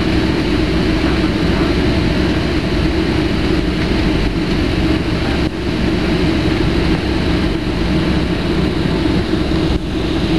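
Jet airliner cabin noise while taxiing: the engines and the rolling airframe make a steady, loud rumble with a low hum, heard from inside the cabin.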